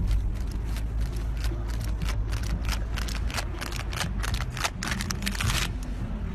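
Wind rumbling on the microphone, with a quick irregular run of clicks and light rattles from about a second and a half in until near the end.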